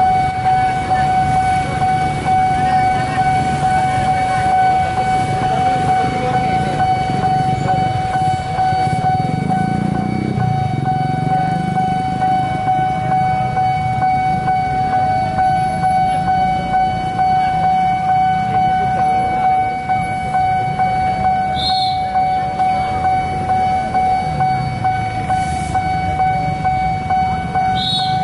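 Railway level-crossing warning siren sounding one continuous high tone, over the rumble of motorbikes and cars passing and revving. A couple of short high chirps come in near the end.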